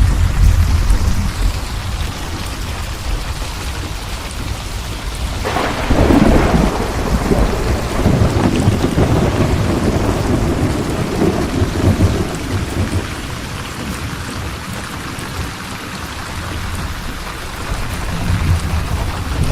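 Heavy steady rain with thunder: a sudden thunderclap about five seconds in, rumbling on and dying away over several seconds, with low rumbling near the start and near the end.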